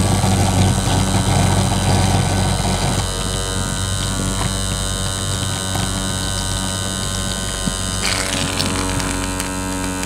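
Electric vacuum pump running with a steady low hum while it evacuates a small copper-tube refrigeration circuit before the refrigerant charge. A hiss joins in about eight seconds in.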